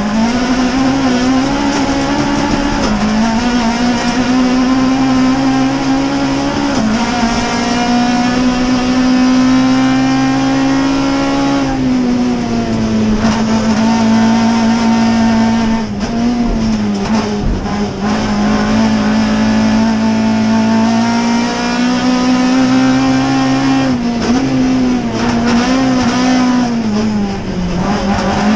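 Rallycross car's engine heard from inside the cabin, running hard at high revs. Its pitch drops and climbs again several times, most deeply about twelve seconds in.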